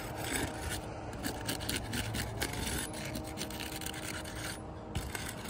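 A flat shingle-removal tool scraping and prying under an asphalt roof shingle to unseat it, a steady run of scratchy rasping with small irregular crackles. The shingle is brittle and sheds granules as it is worked loose.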